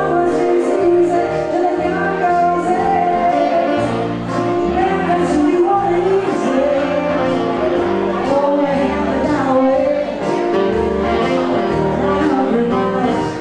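Live band music: a woman singing over keyboard, with a moving bass line and a steady beat.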